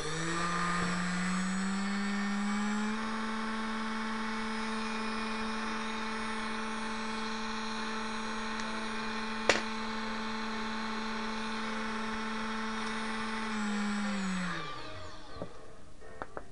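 Small brushless motor, mounted on a wooden plate for a balance check, running at a steady whine. About two and a half seconds in it steps up to a higher pitch, holds there with a single sharp click about nine and a half seconds in, then winds down and stops near the end.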